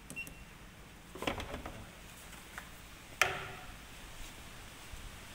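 A single short electronic beep from the wheel balancer's keypad as a key is pressed, then a cluster of clicks and rattles of parts being handled, and about three seconds in one sharp knock with a short ring.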